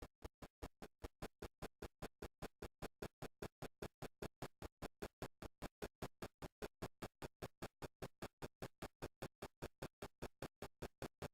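Rapid, evenly spaced stuttering pulses, about six a second, with near silence between them: the storm audio chopped into fragments by slow-motion rendering.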